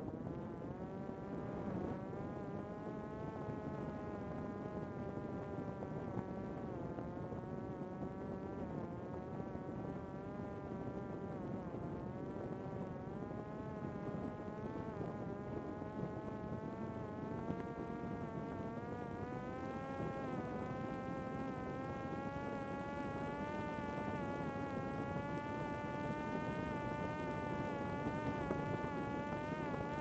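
Parrot Disco fixed-wing drone's electric motor and propeller buzzing steadily in flight, picked up by a camera mounted on the plane, over a low rush of air. The pitch wavers throughout, climbs about two-thirds of the way in and holds higher, then dips slightly near the end.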